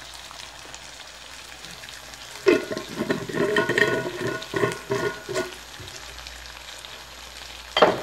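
A wok of chicken liver and gizzard adobo sizzling steadily on the stove. About halfway through come some three seconds of clattering with ringing tones, and a single short knock near the end.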